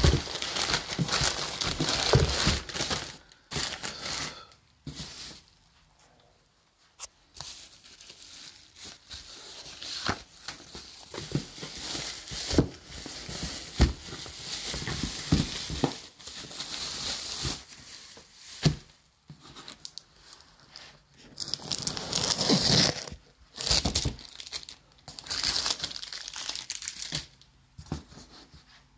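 Packaging being unwrapped by hand: pink anti-static bubble wrap and packing tape crinkling and tearing, with a taped cardboard box being handled. The rustling comes in irregular bursts with sharp clicks and short quiet pauses.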